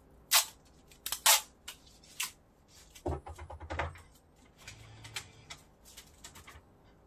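Items being handled and packed into a box: a series of sharp clicks and knocks with rustling, the two loudest about a second apart near the start and a busier stretch of handling noise around the middle.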